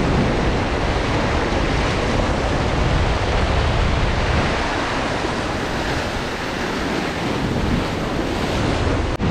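Sea surf surging and breaking over a rocky shore, a dense steady wash of water noise, with wind buffeting the microphone.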